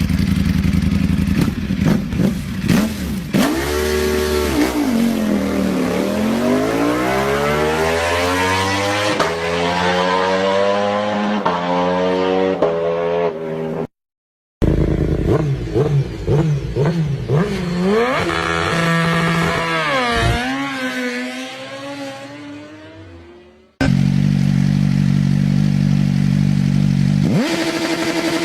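Superbike engines through loud exhausts, in three separate cuts. First, revving and then accelerating with a long rising pitch. Next, revving blips and then pulling away until the sound fades out. Last, idling steadily with a rev near the end.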